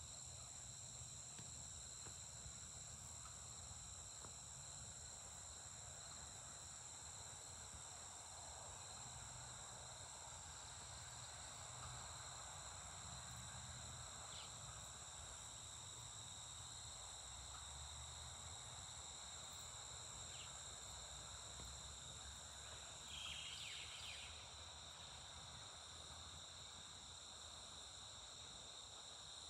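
Faint, steady chorus of insects, several high steady tones that hold without a break, with one brief chirp about 23 seconds in.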